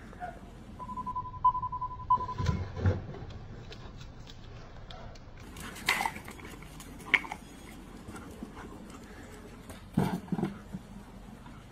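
A dog moving about during a training session, with scattered knocks and low thumps and a couple of sharper dog sounds about midway. About a second in, a short steady high beep sounds.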